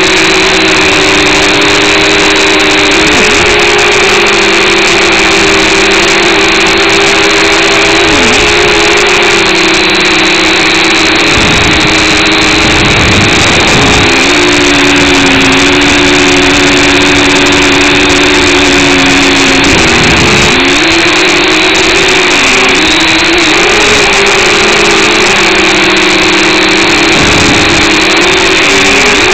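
Eachine H8C mini quadcopter's four motors and propellers buzzing in flight, heard close up from its onboard camera. The loud, steady whine dips briefly in pitch every few seconds as the motors slow and pick up again, and wavers for a few seconds around the middle.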